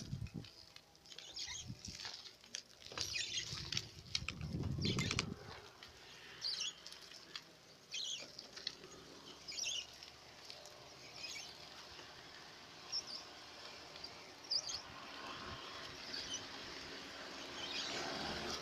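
Wind buffeting and crackling handling noise on a phone microphone held out on a selfie stick while riding, with a stronger low gust of wind about four to five seconds in.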